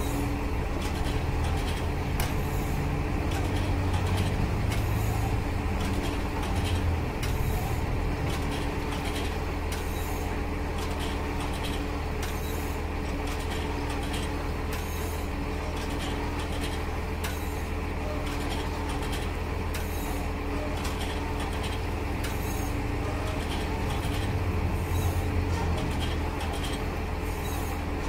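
Round-bale wrapper running steadily as it turns a bale of silage and winds white stretch film around it, over the steady drone of the engine driving it.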